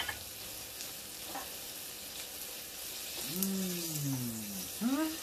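Steak sizzling in cannabis butter in a nonstick frying pan, a steady hiss. About three seconds in a person's wordless voice slides down in pitch, and a short rising one follows near the end.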